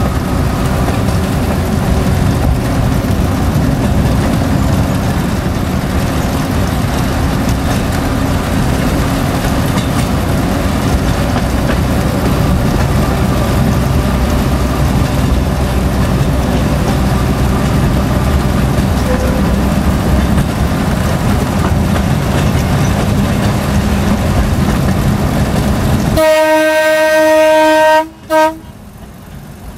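Galloping Goose #7 rail motor car running along the track, its engine and wheels on the rails making a steady low rumble. Near the end its horn sounds one long blast, then a short one.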